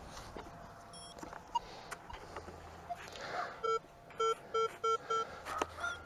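Metal detector's built-in speaker beeping, with a run of five short, even beeps a bit under three a second in the second half: the detector's target tone for metal under the coil.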